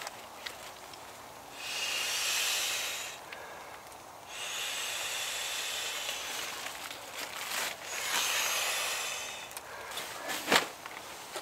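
Air rushing and nylon rustling as a pump sack is pressed to inflate an inflatable sleeping pad, in three long pushes, the middle one the longest.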